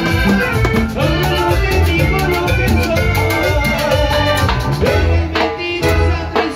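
Live Latin dance band playing with a steady beat: electric bass, timbales, a metal güira scraper and accordion.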